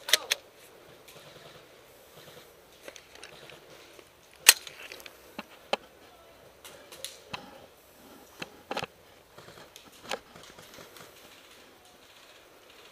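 Scattered single shots of airsoft guns: sharp clicks and snaps at irregular intervals, the loudest about four and a half seconds in, the rest fainter, as from guns further off.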